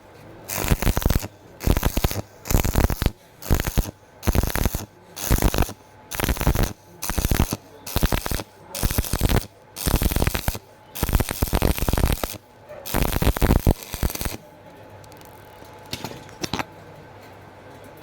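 Stick-welding arc crackling in about a dozen short bursts, each under a second, as thin square pipe is welded in short stitches; the bursts stop about 14 seconds in.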